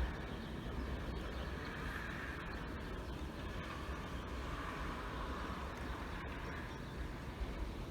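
Steady outdoor noise: wind buffeting the microphone in a low, uneven rumble under a steady hiss.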